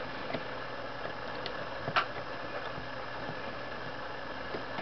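Small metal clicks of HK416 D .22LR trigger-group parts being handled and fitted together by hand, a few scattered taps with the sharpest about two seconds in, over a steady background hiss.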